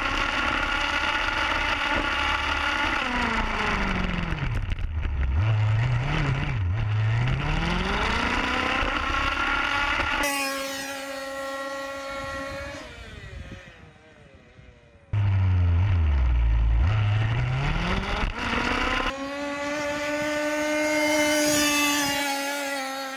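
Zenoah G32 32cc two-stroke engine of an HPI Baja RC car with a resonance pipe, revving down and up, then running flat out at a steady high pitch as the car speeds away and fades. The sound jumps abruptly several times between takes.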